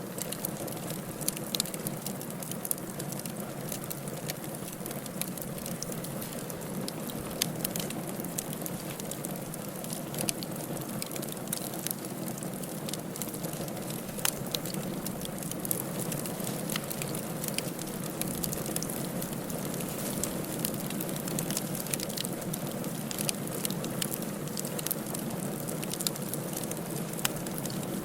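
Firewood burning in a fireplace: a steady soft rush of flame with frequent sharp crackles and pops scattered irregularly throughout.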